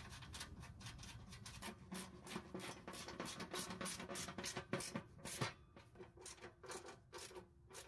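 Socket ratchet wrench clicking in quick runs of strokes as nuts and bolts are turned and checked.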